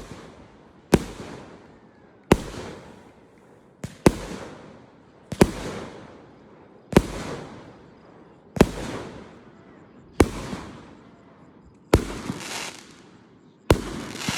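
Fireworks bursting, a loud bang about every second and a half, nine in all, each trailing off over a second or so.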